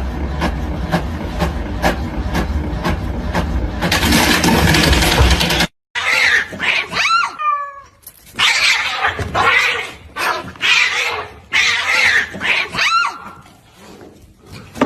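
Epson inkjet printer running with a regular ticking about twice a second, then a louder rushing noise that cuts off suddenly about six seconds in. After that, two cats yowl at each other in a standoff, with long wavering cries that glide up and down.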